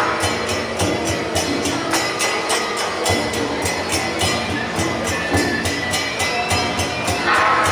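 Temple procession percussion music: drums with cymbals clashing in a steady rhythm.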